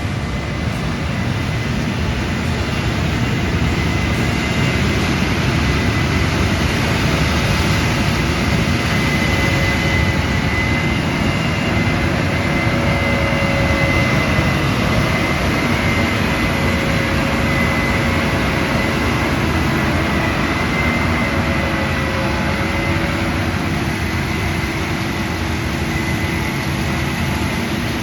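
Combine harvester working through dry corn close by: a loud, steady machine noise of engine and threshing gear with a faint high whine, growing a little louder over the first few seconds.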